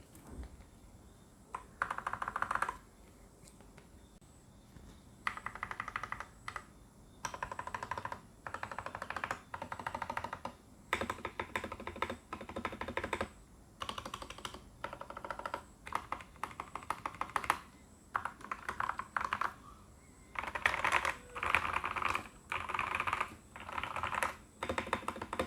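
Typing on a TKL mechanical keyboard with lubed Outemu Orange switches and PBT keycaps: bursts of rapid keystrokes with short pauses between them, and a quieter stretch a few seconds in.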